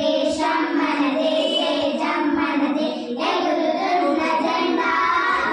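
Young girls singing together into a handheld microphone, their voices held on long notes with a short break about three seconds in.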